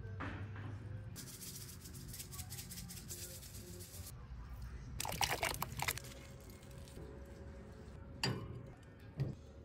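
Coarse salt sprinkled over raw steaks on a plastic cutting board: a fine crackle of grains landing for about three seconds, then a louder crackling burst. Two short knocks come near the end.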